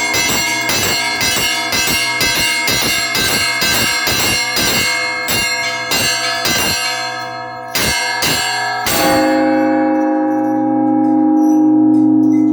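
Russian Orthodox church bells rung in a fast peal of several bells; the strokes thin out about seven seconds in. A last stroke about nine seconds in is left to ring out, its low tones humming on with a slow waver.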